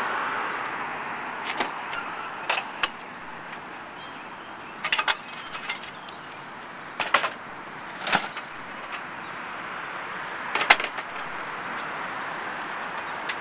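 Scattered clunks and clicks as a GMC Safari van's rear doors are opened and a rolling cart in the back is handled, over a steady hiss of street noise. The knocks come singly and in quick clusters, the sharpest near the end.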